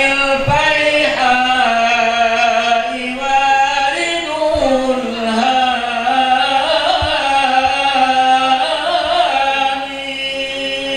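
Voices chanting Arabic devotional verses (marhaban sholawat) in long, drawn-out melodic lines with ornamented, wavering held notes. The chanting eases off slightly near the end.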